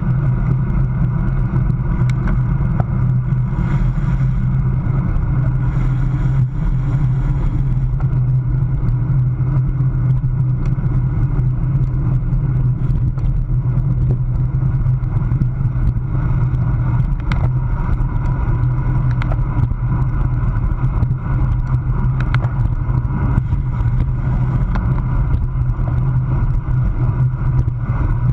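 Steady low wind rush over a bike-mounted camera's microphone as a road bike races at about 21 to 30 mph.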